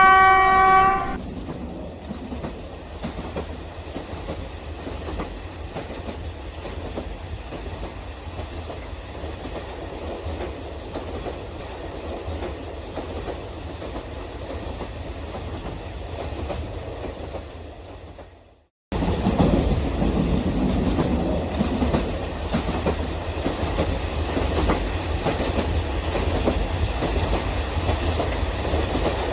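Electric O scale model freight train, a diesel locomotive pulling a long line of plastic boxcars, rolling along plastic track with a steady rumble and wheel clatter. A short horn blast sounds at the start. The sound cuts out for a moment after about eighteen seconds, then returns louder as the boxcars pass close by.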